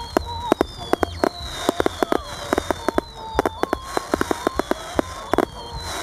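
Fireworks display: a dense run of sharp bangs and crackles from bursting aerial shells and crackling stars, many per second, over faint high tones that slide slowly downward.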